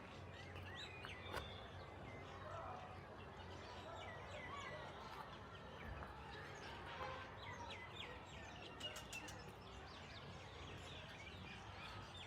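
Faint outdoor street ambience: a steady low hum under scattered short bird chirps, with a single light tick about a second and a half in.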